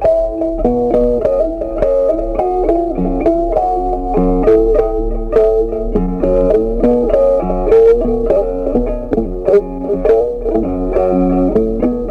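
Background music: an instrumental tune of quick, short notes at a steady level.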